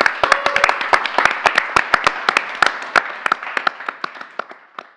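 A small group of people clapping, the applause thinning out and fading away toward the end.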